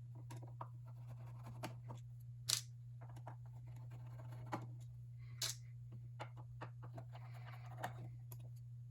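Faint clicks and scrapes of a Phillips screwdriver backing out the small screws that hold the telescope's power panel cover plate, over a steady low hum.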